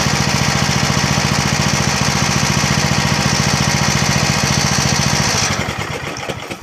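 Snapper rear-engine riding mower's engine running steadily and smoothly, just after its drivetrain rebuild; about five and a half seconds in it is shut off and winds down to a stop.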